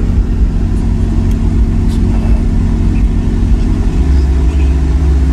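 Loud, steady deep rumble inside a vehicle's cab, growing stronger about four seconds in.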